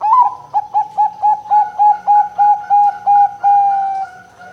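Zebra dove (perkutut) cooing its song: one sharp opening note, then a rapid run of about eleven short, even coos at roughly four a second, ending in one long note that sinks slightly in pitch.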